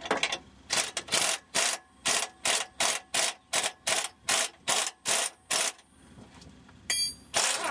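A hand ratchet is worked in quick even strokes, about three a second, giving a rasping ratchet click on each stroke. It pauses, a short metallic ring follows, then one more loud stroke near the end.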